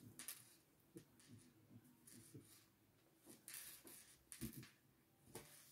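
Near silence, with a few faint, short scratchy rustles of a crochet hook pulling yarn through stitches.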